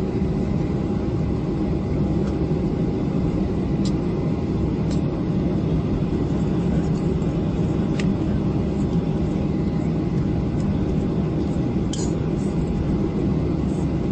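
Steady low rumble inside an airliner cabin, with the engines running and a faint steady whine, as the plane taxis after landing.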